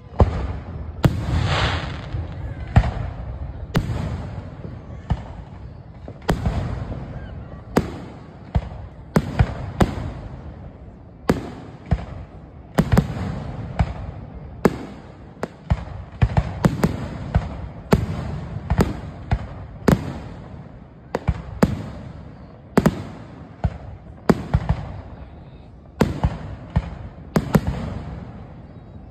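Fireworks finale: aerial shells bursting in rapid succession, dozens of sharp bangs, often two or more a second, each trailing off in a low rolling echo.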